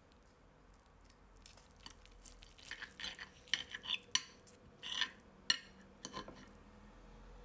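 Fork and table knife clicking and scraping against a ceramic plate while cutting through baked chicken breast topped with cheese, in a run of irregular clinks from about a second and a half in to about six seconds in.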